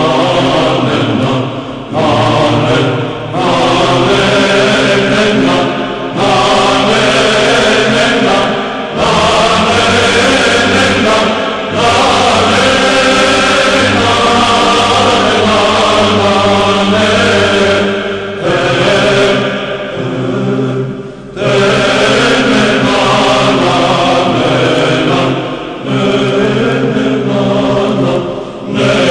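Byzantine hymn chanted by voices. A low note is held steady beneath a slowly moving melody, and the phrases are separated by brief pauses.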